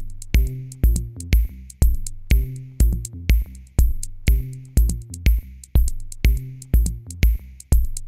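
Electronic background music with a drum-machine beat: a kick drum about twice a second, sharp high hits and a sustained low synth line.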